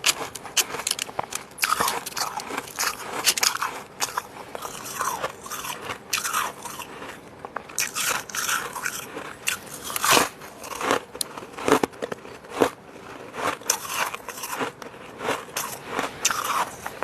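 Close-miked biting and chewing of fluffy freezer frost: a continuous, irregular run of soft crunches and crackles as the frost is bitten and chewed.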